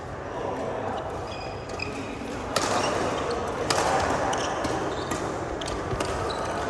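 Badminton rally: sharp racket strikes on the shuttlecock, the loudest about two and a half and three and a half seconds in, with short high squeaks of court shoes on the floor.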